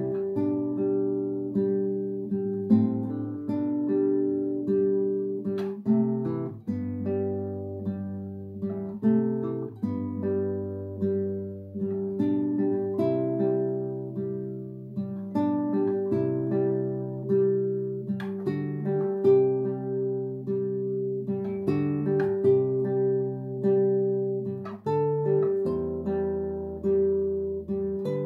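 Classical guitar played fingerstyle as a solo piece: one high note is plucked over and over while the bass notes beneath it change every second or two.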